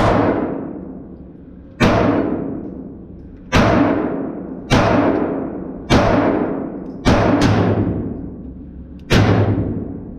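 A string of revolver shots, about eight, each followed by a long echoing decay, spaced roughly one to two seconds apart, with two fired close together about seven seconds in.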